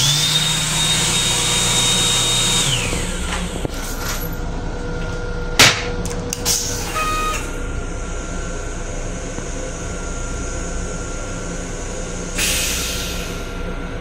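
Built-in restroom hand dryer whining up to a steady high pitch with a rush of air, then winding down about three seconds in. After it, the steady rumble of the moving railcar, with a sharp click about five and a half seconds in and a short hiss near the end.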